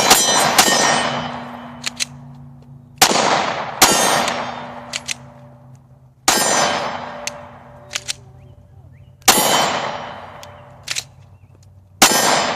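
Glock 19 Gen 4 9mm pistol firing about seven shots at an uneven pace, a second to three seconds apart. Each shot has a long echoing tail, and small sharp clicks come between some shots. The mud-caked pistol still fires and cycles, though it needed clearing a few times.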